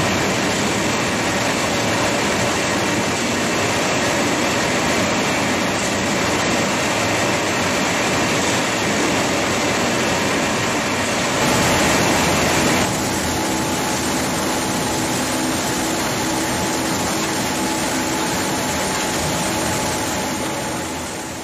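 Citrus processing machinery running steadily: an even, dense mechanical noise with a few steady hums under it, shifting slightly in tone a little past halfway and fading out at the end.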